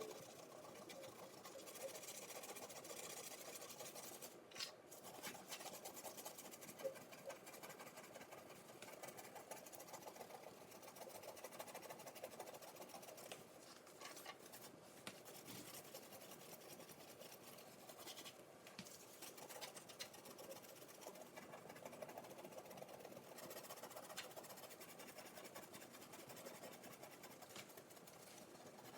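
Faint rhythmic scrubbing: a wet dishwasher tablet rubbed back and forth against oven door glass.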